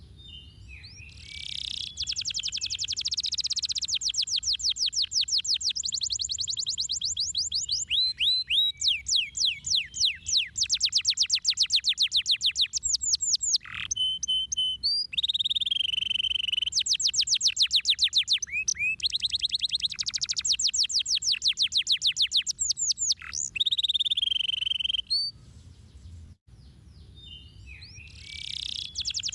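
Domestic canary singing a long song of fast trills and rolls: runs of rapidly repeated high notes, each lasting a few seconds, broken by short gaps. There is a brief pause near the end before the song starts again.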